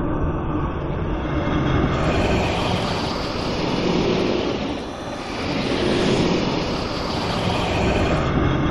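Designed sci-fi sound effect of a sinister alien monster breath: a deep, rumbling, airy rush that swells, dips briefly about halfway through, then swells again before settling back to a low rumble near the end.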